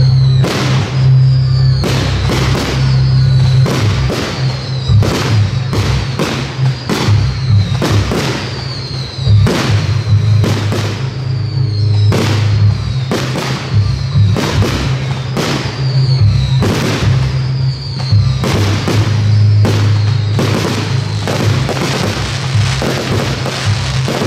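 Aerial fireworks shells bursting in quick succession, one or two bangs a second, over loud music with a heavy steady bass.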